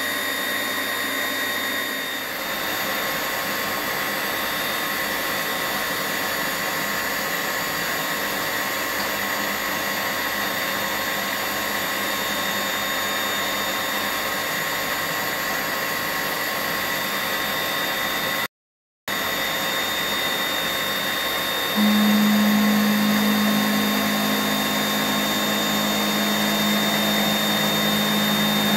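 1983 Deckel FP2A milling machine running under CNC control, its gear-driven spindle turning an end mill that cuts a round workpiece on a rotary axis under coolant: a steady machine whine with several held tones. The sound cuts out briefly about two-thirds through, and about three-quarters through a strong low hum comes in and the noise gets louder.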